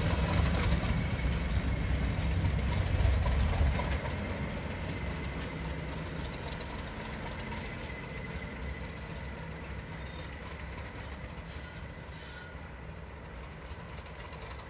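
English Electric Class 37 diesel locomotive's V12 engine running as it draws away. The engine is loud for the first four seconds, drops off sharply, then fades steadily as the locomotive moves off into the distance.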